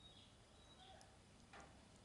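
Near silence with faint, short, high chirps every half second or so, and a brief soft rush of noise about one and a half seconds in.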